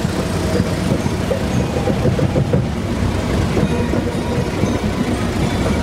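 Engines of off-road 4x4 vehicles running in a convoy, a steady low-pitched engine noise.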